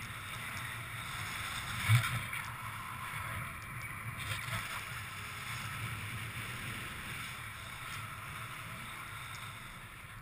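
Steady rushing of wind and travel over snow, buffeting a snowkiter's action-camera microphone, with one sharp knock about two seconds in.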